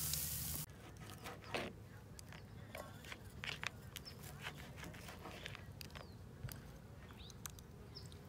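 Marinated short ribs sizzling on a small charcoal grill, cut off abruptly less than a second in. Then scattered light clicks and scrapes of forks and tongs picking at grilled meat on a paper plate.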